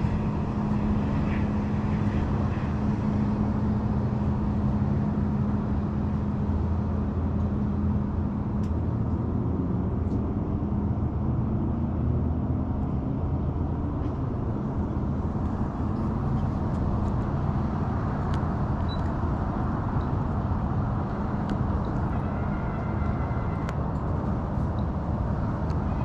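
A boat motor runs with a steady low drone over a rumbling background. Its tone holds for about the first nine seconds, then wavers in pitch.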